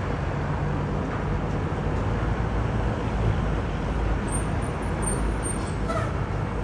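Steady low rumble of a Boeing 767-400ER's jet engines on approach to land, with a faint steady whine above it.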